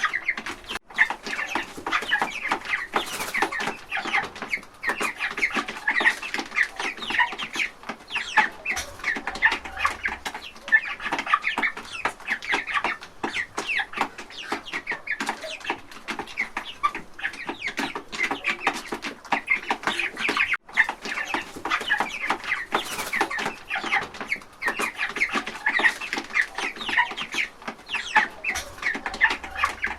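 A flock of chickens clucking continuously, many short calls overlapping one another.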